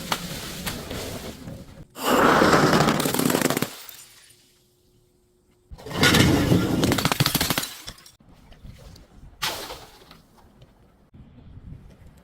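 Brittle objects being crushed and broken, with rapid crackling and crunching. Two loud bursts come about two seconds in and again about six seconds in, then a shorter one near the end.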